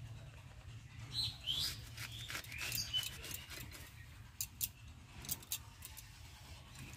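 Small birds chirping a few times, short falling calls in the first three seconds, over scattered sharp clicks and taps and a steady low hum.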